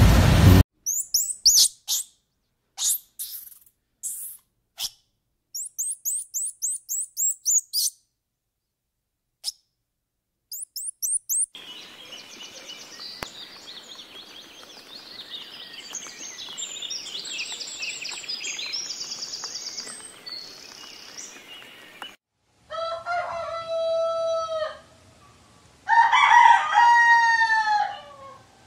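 Squirrel monkey giving short runs of high-pitched chirps, then a long stretch of bird chatter, then a rooster crowing twice near the end.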